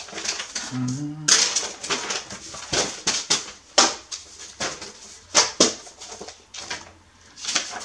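Sheets of paper rustling and crackling in irregular bursts as handwritten pages are lifted, turned over and laid down on a desk, with a brief low murmur of a voice about a second in.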